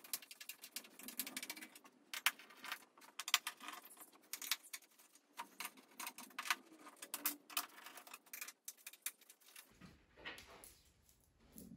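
Phillips screwdriver backing out the screws that hold a treadmill running deck: a rapid, irregular run of small metallic clicks and ticks, which stops shortly before the end.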